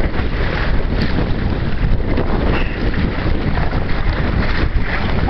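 Steady wind buffeting the microphone aboard a Hobie Tandem Island sailing kayak under way, with water rushing along the hull beneath it.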